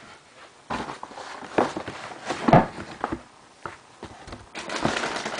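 A person moving about and rummaging for a shoe: scattered footsteps and knocks, the loudest about halfway through, then a rustle near the end.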